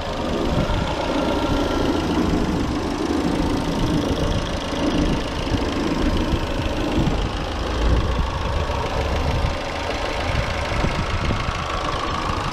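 Citroën 1.6-litre 16-valve NFP petrol four-cylinder engine idling steadily just after starting.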